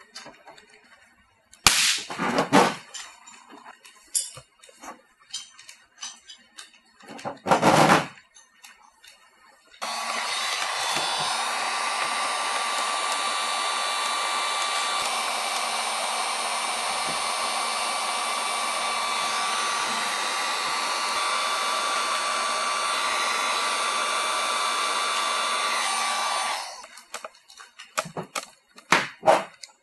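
Electric heat gun switching on about ten seconds in and running steadily with a constant whine for some sixteen seconds, then shutting off abruptly; it is heating the aluminum panel around the welded pull nail ahead of the pull. Before it, two brief loud noises; after it, a few light clicks and knocks.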